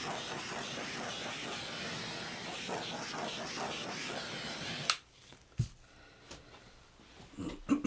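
Handheld butane torch flame burning with a steady hiss, used to pop bubbles in wet acrylic pour paint. It is shut off with a sharp click about five seconds in, and a single knock follows a moment later.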